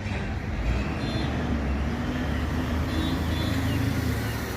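Road traffic: a motor vehicle's engine running close by, a steady low hum over road noise, with faint short high chirps about a second in and again around three seconds.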